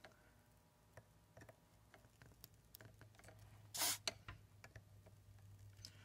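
Desoldering iron at work on a power adapter's circuit board: faint scattered clicks and taps of the tool against the board, a short hiss about four seconds in, and a faint low hum underneath.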